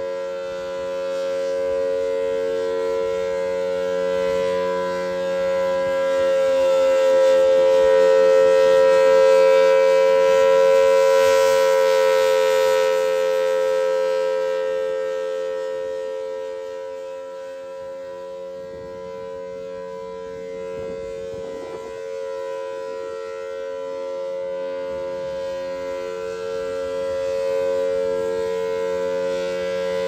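Federal Signal Thunderbolt 1003 outdoor warning siren sounding a steady alert tone, a two-note chord from its 5/6-ported rotor. It swells loud and brighter as the rotating horn swings toward the listener, about a third of the way in, fades as it turns away, then grows louder again near the end.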